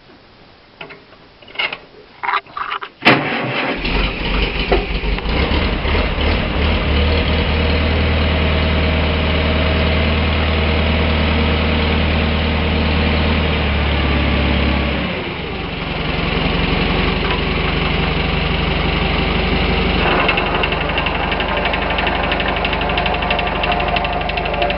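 1951 Farmall Super A tractor's four-cylinder engine started with a few clicks and a sharp catch about three seconds in, then running steadily with a low hum. About fifteen seconds in the sound dips and changes, and it runs on with a strange noise that the owner puts down to the transmission and cannot identify.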